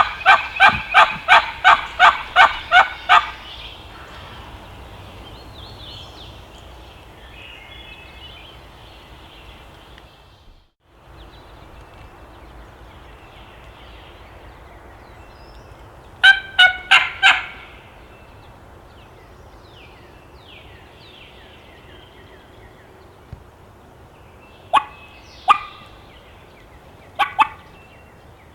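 Turkey yelps: a fast run of about a dozen loud, evenly spaced notes over the first three seconds, a shorter run of five about halfway through, and two pairs of notes near the end. Faint songbird chirps sit in the background.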